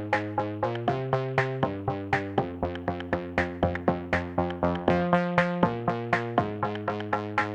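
Background music: electronic synthesizer tune of quick plucked notes over a steady beat, several notes a second.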